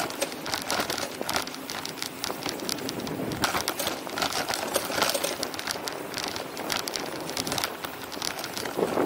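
Wind and road rattle while cycling: a steady crackling noise full of small clicks, swelling now and then.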